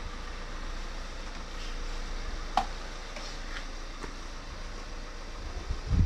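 Low steady rumble of an idling engine, with one sharp click about two and a half seconds in and a few fainter ticks after it.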